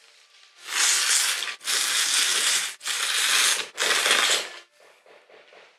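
A man slurping soba noodles: four long, loud slurps of about a second each, one after another, then faint chewing.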